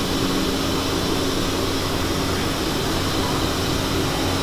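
Steady hum of ventilation machinery, a fan-type drone with a constant low tone and rumble, running evenly without change.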